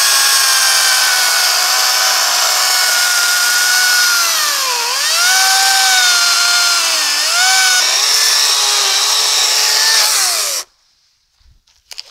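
Greenworks 40-volt cordless electric chainsaw cutting through a fallen tree trunk. The motor runs at a steady pitch that sags twice as the chain bogs under load, then stops abruptly about ten and a half seconds in.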